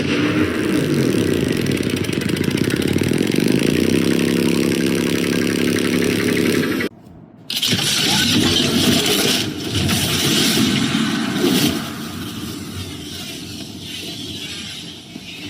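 Anime sound effects: a loud, dense rumble with stacked tones sliding and stepping in pitch, stopping suddenly about seven seconds in. After a short gap comes a second harsh, hissy effect, which falls quieter near the end.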